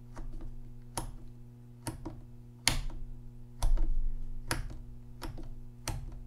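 Rotary selector switch on a B&K Dyna-Jet 707 tube tester turned step by step through its positions for a shorts test, clicking into each detent about once a second, one click a heavier knock about halfway through. A steady low hum runs underneath.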